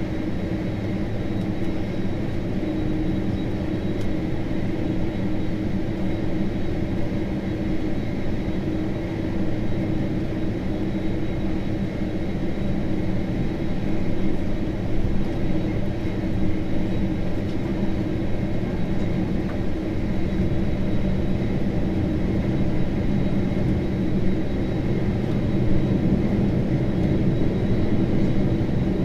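Boeing 767-300ER's jet engines running at taxi power, heard from inside the cabin as a steady drone with a faint high whine over it.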